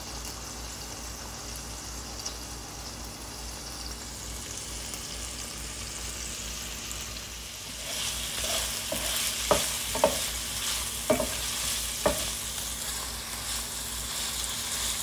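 Sliced smoked sausage sizzling in oil in a frying pan. About eight seconds in, chopped onion goes into the pan and the sizzle gets louder, with a few sharp knocks against the pan as it is stirred.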